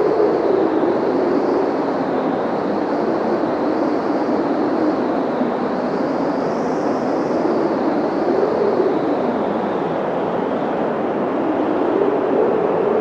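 Blizzard wind blowing steadily and hard, with a low hollow howl that slowly wavers in pitch and a fainter whistling tone that rises and falls above it.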